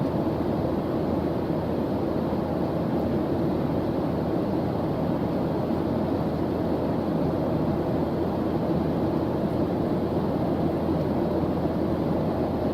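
Steady white-noise track: an even, deep rushing noise with no changes.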